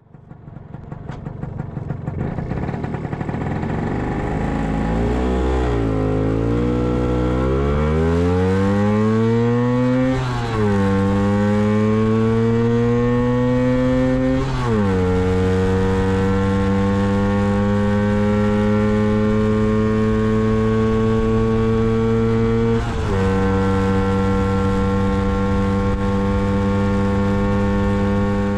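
A Lambretta GP125 scooter's two-stroke single-cylinder engine accelerating at full throttle from a standstill up through its gears. The engine note climbs steadily and drops sharply at each of three gear changes, then rises only slowly in top gear.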